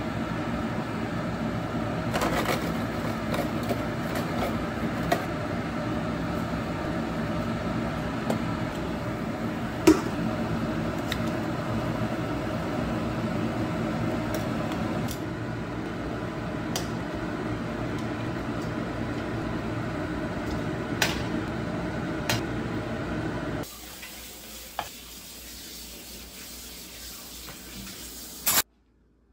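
A pot of pork offal simmering in broth on an electric stove, a steady bubbling hiss, with metal tongs clinking against the stainless steel pot a few times. Near the end it drops to a quieter background hum, and one sharp knock comes just before the end.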